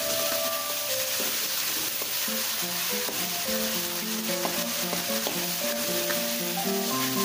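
Chili spice paste sizzling in hot oil in a wok while a metal spatula stirs and scrapes it around the pan, giving a steady hiss with faint scraping ticks. Background music with a melody plays throughout.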